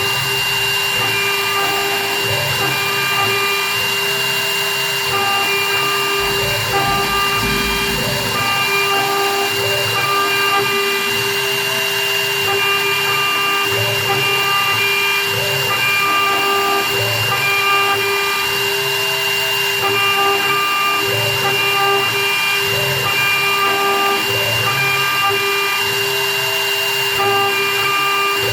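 Small CNC milling machine for wedding rings running: a steady high whine, with short pitched tones switching on and off about once a second as the machine works.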